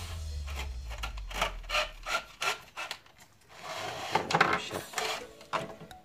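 Insulated electrical wires being pushed and pulled through flexible corrugated conduit into a plastic switch box: irregular rubbing and scraping with clicks and knocks of plastic, thickest about halfway through.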